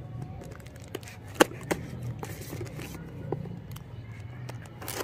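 Folding knife blade cutting through packing tape on a cardboard box: light scraping with a few short sharp ticks, the loudest about a second and a half in, over a low background hum.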